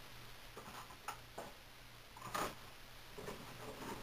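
A few light clicks and knocks of objects being handled, the loudest about two and a half seconds in.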